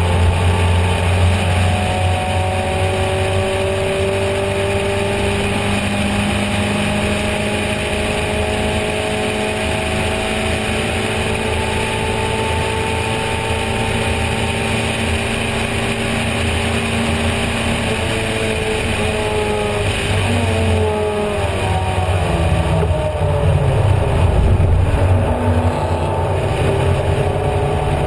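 Racing car engine heard from on board, running hard under load with its note climbing slowly, over steady wind and road rush. A little past two-thirds of the way through the note drops and steps down as the car slows for a corner, then climbs again near the end.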